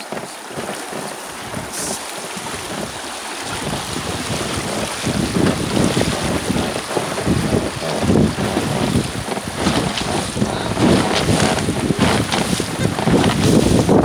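River water rushing over shallow, stony rapids around a wooden raft, with wind buffeting the microphone in gusts that grow stronger from about five seconds in.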